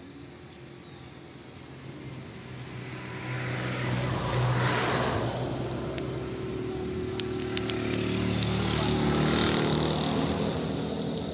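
Motor vehicles passing, their engine hum swelling to a peak about four seconds in and again near the end, with a few faint clicks in between.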